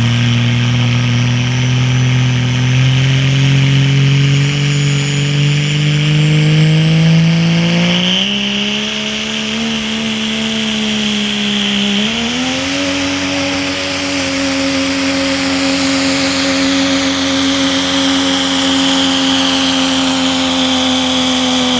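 Dodge Ram pickup's Cummins turbo-diesel engine at full power pulling a weight-transfer sled. Its pitch climbs steadily, jumps up twice, about 8 and 12 seconds in, then holds steady under load, with a high whistle over the engine.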